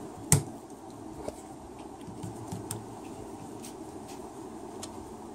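A small hand ratchet with a Torx socket giving a sharp click about a third of a second in, then a few fainter clicks, as it loosens the solenoid bracket bolts on an automatic transmission valve body. A steady hum runs underneath.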